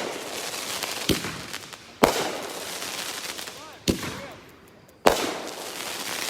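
Consumer fireworks cake (Red Apple Fireworks' Sizzled) firing: a sharp bang every one to two seconds, each followed by a long hissing spray that dies away before the next.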